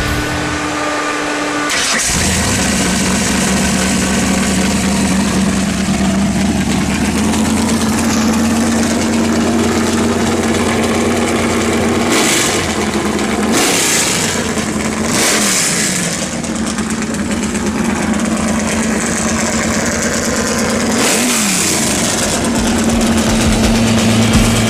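Ford 393 cubic-inch stroker V8 of a drag-race Pinto fires up about two seconds in and runs steadily, with several short revs, each rising and falling, in the second half.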